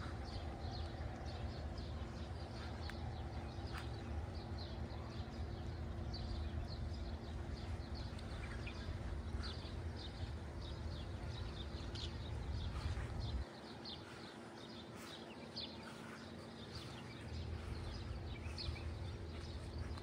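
Small birds chirping, many short high calls scattered throughout, over a low wind-like rumble that drops away for a few seconds past the middle, with a faint steady hum underneath.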